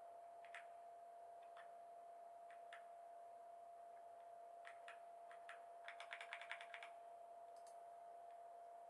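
Keystrokes on a white backlit computer keyboard: scattered single keypresses, then a quick run of about ten keys in a second, about six seconds in. A faint steady whine runs underneath.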